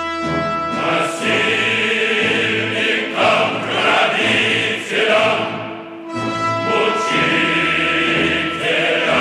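Choral music: a choir singing long held notes, with the harmony changing twice.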